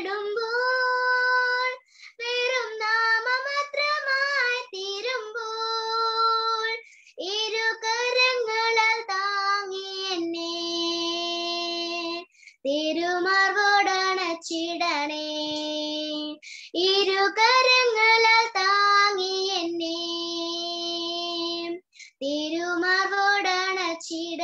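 A young girl singing a Malayalam Christian devotional song in phrases, breathing between them and holding long steady notes at the ends of some lines.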